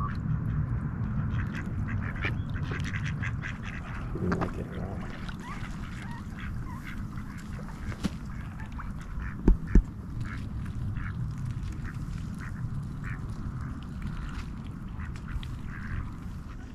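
Mallard ducks quacking again and again in short calls, over a steady low rumble. Two sharp knocks come close together a little past halfway.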